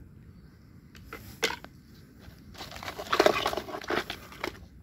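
Hands moving in a basin of muddy water with plastic toys: two short sharp knocks about a second in, then a longer stretch of irregular splashing and rustling in the second half.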